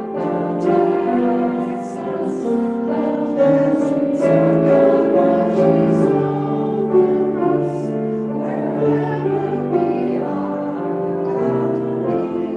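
A slow song sung by voices with piano accompaniment, the notes held and moving in steps.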